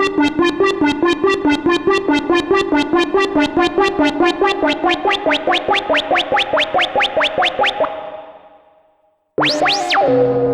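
Arturia MiniBrute 2 analog synthesizer playing a fast sequenced line of short notes, about six a second, with a rising sweep growing on each note from about halfway through. The line fades out, and after a brief gap a new patch comes in with a quick pitch swoop that settles into a held note.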